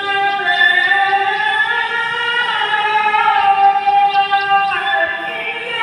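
Quranic recitation: a single voice chanting in long, drawn-out phrases that slide slowly in pitch.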